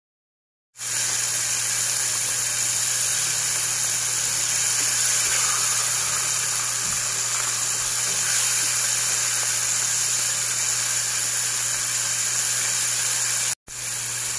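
Batter-dusted fish-paste balls wrapped around quail eggs deep-frying in a pot of hot oil: a steady, even sizzle with a low hum beneath it. It starts just under a second in and cuts out for a moment near the end.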